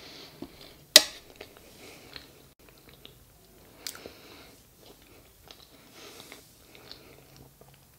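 A person chewing a mouthful of soft, moist red velvet cake close to the microphone, with one sharp click about a second in.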